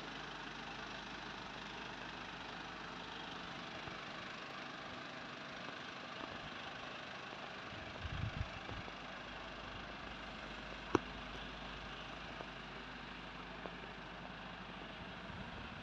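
Steady hum of a Mercedes Sprinter 516 CDI's four-cylinder diesel engine idling, with a few low bumps about eight seconds in and a single sharp click about three seconds later.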